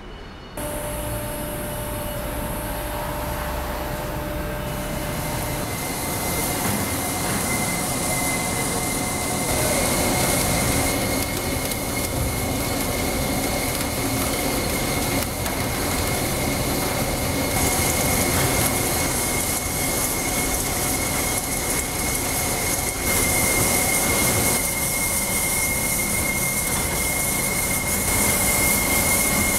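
Multi-block wire drawing and ribbing machine running: a steady mechanical rush from its drawing capstans, with a thin, high, steady whine over it.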